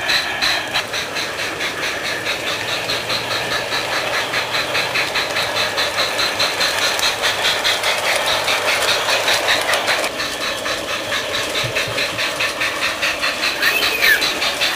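Garden-scale model steam locomotive and coaches running along outdoor track, a steady quick, even beat with a rattle and hiss. A steady tone joins about ten seconds in.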